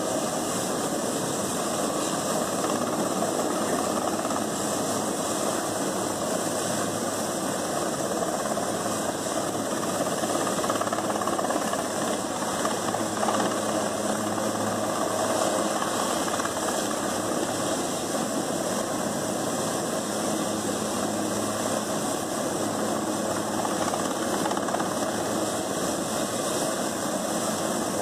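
Steady mechanical engine noise with a low rumble, running evenly without a break.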